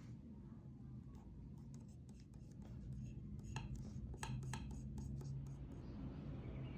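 Pen writing on paper: light scratching with a scatter of short sharp ticks, thickest from about three and a half to five seconds in.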